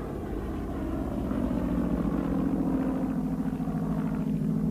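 Propeller aircraft engine droning at a steady pitch, slowly growing louder.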